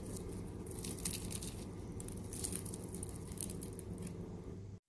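Crisp deep-fried onion vada crackling and crunching as it is torn apart by hand: a scattered run of small, dry crackles.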